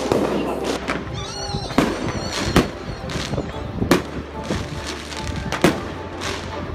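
Aerial fireworks going off, a series of sharp bangs about once a second, with music underneath.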